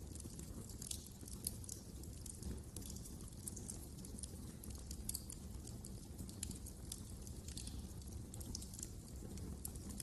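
Wood fire crackling in a fireplace: frequent small sharp pops and snaps scattered irregularly over a steady low rumble.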